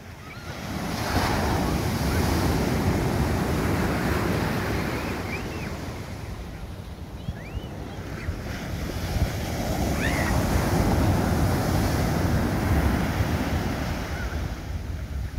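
Ocean surf washing on the beach, swelling about a second in, easing off in the middle and building again, with wind buffeting the microphone.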